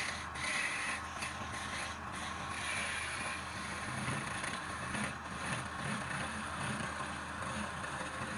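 Wood lathe running, with a steady rough scraping noise.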